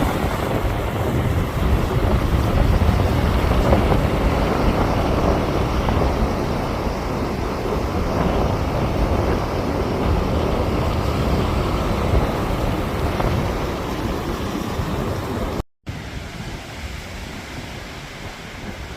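Storm wind gusting hard across the microphone over the rush of breaking surf. About 16 seconds in it cuts out for an instant and returns quieter.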